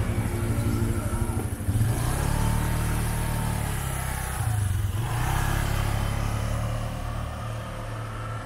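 A motor vehicle's engine running, its note picking up about two seconds in and again about halfway, then easing off near the end.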